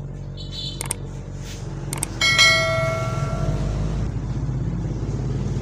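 Subscribe-button animation sound effect: a short high chime, two sharp mouse clicks, then a bright bell ding about two seconds in that rings on for over a second. A steady low hum runs underneath.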